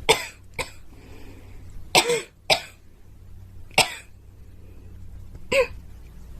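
A girl coughing: six sharp coughs, the first four in two quick pairs, then two single coughs a second or two apart.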